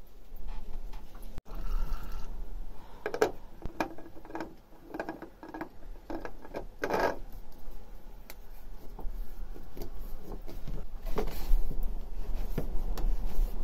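Hand-handling noises around a narrowboat engine as a new filter is fitted: a cluster of clicks, knocks and rubbing, then softer wiping and scraping from a cloth near the end, over a low steady rumble.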